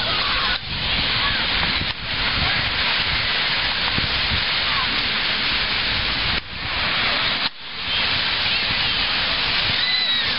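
Wind blowing across the microphone over the wash of surf: a steady rushing noise that drops away briefly four times.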